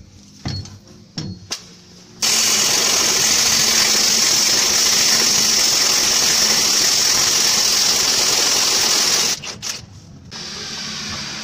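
Impact wrench hammering steadily for about seven seconds on the differential pinion nut, undoing it so the pinion oil seal can be replaced. A few knocks come before it, and a fainter steady noise follows near the end.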